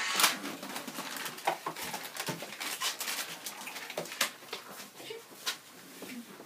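Irregular short rustles and knocks, several a second at times, from people moving about and handling things in a small room.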